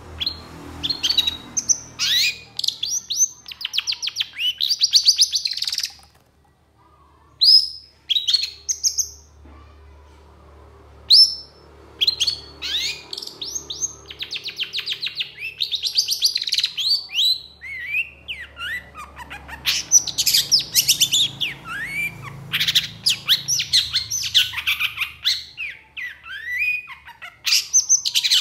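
Long-tailed shrike singing hard, in long rapid runs of high, chattering notes that sweep up and down. The song pauses briefly twice in the first third, then runs almost unbroken from about twelve seconds in.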